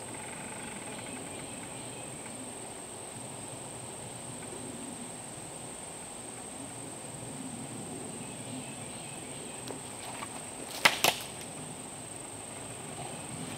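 Steady high-pitched insect drone over a quiet woodland background. About eleven seconds in come two sharp knocks close together, from work on a wooden post being set in the ground.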